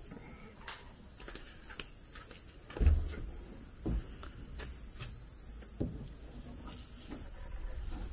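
Dull thumps and knocks of plywood boards being handled and set down, the loudest about three seconds in, with lighter clicks between, over a steady high-pitched chirring of crickets.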